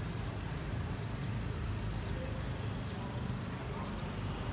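Steady low rumble of distant city traffic, an even background noise with no distinct events.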